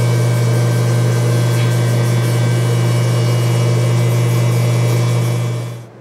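A microwave oven running, with a loud steady low hum and the rush of its fan, while carbonized cooking residue in the chamber burns. The hum cuts off near the end as the oven stops.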